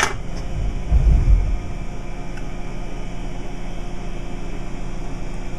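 A steady, noisy background hum, with one dull low thump about a second in.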